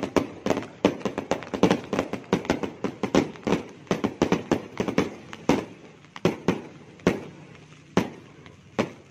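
Many fireworks and firecrackers going off at once: a dense, irregular string of sharp echoing bangs, several a second, with a brief lull a little after halfway.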